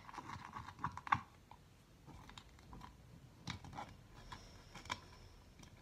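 A spoon stirring sticky slime of glue and activator in a bowl: faint, irregular clicks and taps, a little louder about a second in and again around three and a half seconds in.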